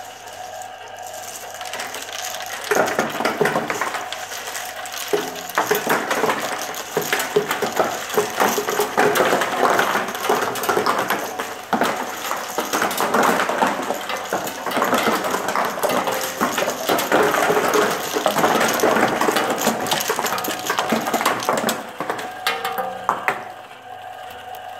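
Crizaf S4600 roller separator running, with small hard plastic moulded pieces clattering densely over its turning rollers and dropping through into the box below. The clatter starts about three seconds in and thins out near the end, over a steady machine hum.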